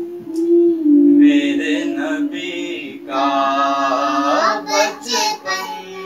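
A young girl singing an Urdu naat into a handheld microphone, drawing out long held notes with gliding pitch between the words.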